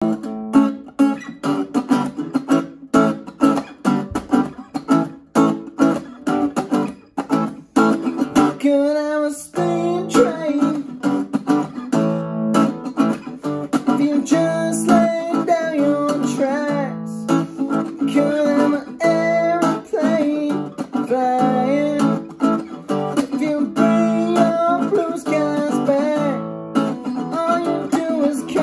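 A small-bodied acoustic guitar strummed in a rhythmic, percussive pattern of sharp, evenly spaced strokes. About nine seconds in, the playing becomes more continuous and a melodic line comes in over it.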